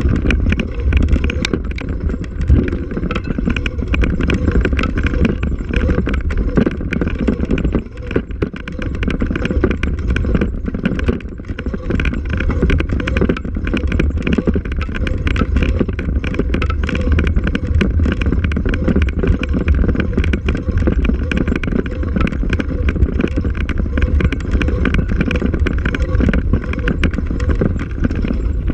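Ride noise of a vehicle travelling over a bumpy dirt trail: a steady low rumble with constant rattling knocks from the rough ground, and wind on the microphone.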